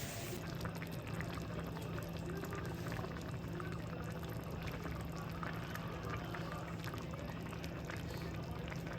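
Sundubu stew bubbling and crackling in a pot on the heat, many small pops over a steady low hum.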